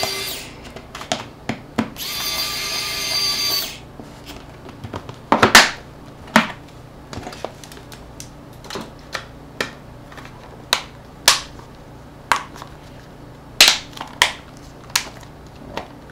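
Pen-style electric precision screwdriver running in two short bursts: one stops about half a second in, the other runs for under two seconds starting about two seconds in. Then come a series of sharp separate clicks and taps as small phone parts are handled.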